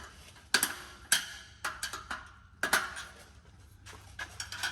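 Irregular sharp metallic clanks and knocks, about eight of them, some ringing briefly: exhaust parts and hand tools being handled while the factory muffler section is taken off.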